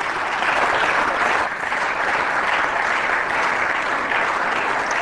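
Applause from the members of a parliament at the close of a speech. It builds up in the first half-second and then holds steady and dense.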